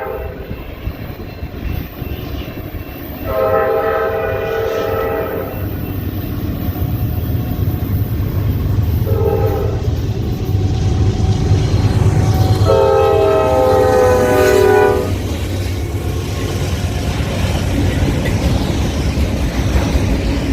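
Diesel locomotive air horn sounding a multi-note chord: a long blast, a short blast, then another long blast, the closing part of a grade-crossing signal. Between and under the blasts is the low, steady rumble of the lead diesel locomotives passing.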